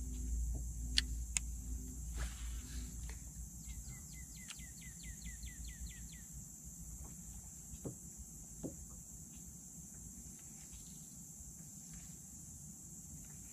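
Outdoor lake ambience: a steady high-pitched insect drone, and a bird calling a quick run of about a dozen short notes, each dropping in pitch, a few seconds in. A low rumble fades out within the first two seconds, and two sharp clicks sound about a second in.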